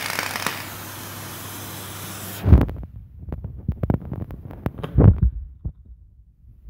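Steady hiss of a vigorous reaction in a test tube throwing off dense white fumes, cutting off suddenly about two and a half seconds in. After it come a series of low knocks and bumps as glassware is handled at a test-tube rack.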